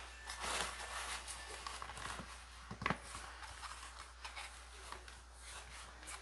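White plastic lid of a NutriMill Classic grain mill's flour bowl being handled and fitted back onto the bowl: faint plastic rubbing and scraping, with one sharp click a little before halfway through.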